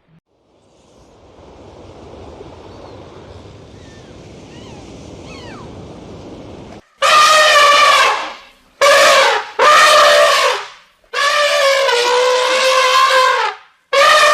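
An animal giving a series of loud, long calls of steady pitch, the first about seven seconds in, after faint background noise.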